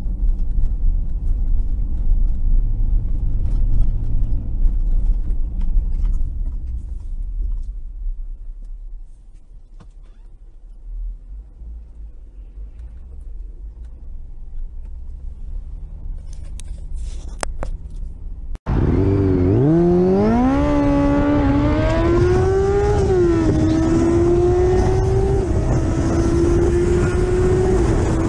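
A car's low driving rumble, then an abrupt switch to a motorcycle engine accelerating hard. Its pitch climbs through two or three gear changes and then holds steady at speed.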